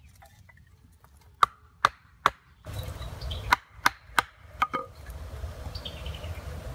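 Knife blade chopping into a wooden stick on a stump, cutting a V notch: three sharp wooden knocks less than half a second apart, then four more about a second later over a low rumbling noise.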